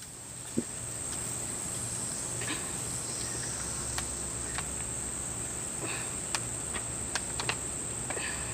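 Insects droning steadily at a high pitch, with a few faint clicks and a low rumble coming in about three seconds in.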